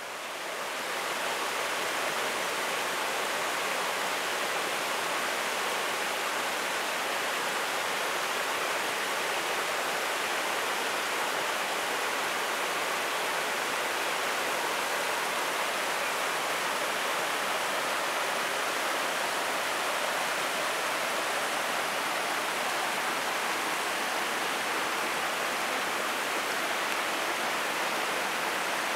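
Steady rush of a shallow river at low water pouring over a low rock weir and around stones, fading in over the first second or so.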